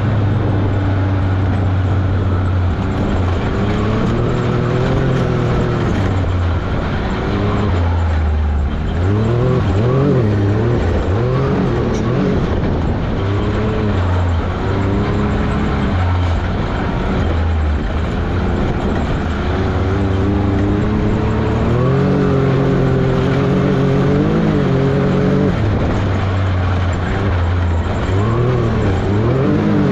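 Can-Am Maverick X3 XRS Turbo RR side-by-side's turbocharged three-cylinder engine running hard, its pitch rising and falling again and again as the throttle is worked through turns.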